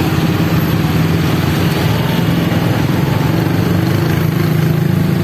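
A large engine running steadily at idle, a loud even hum with fast regular pulsing.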